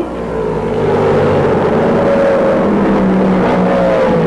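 Several race car engines running at full throttle on the track, a steady loud drone whose pitch drifts slowly lower.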